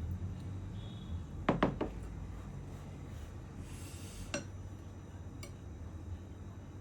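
Dishes clinking: three quick ringing clinks about one and a half seconds in, then a short hiss and one more clink a little past the middle, over a low steady hum.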